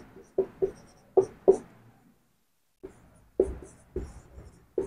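Marker pen writing on a whiteboard: a run of quick, short strokes, a pause of about a second midway, then more strokes as the next words are written.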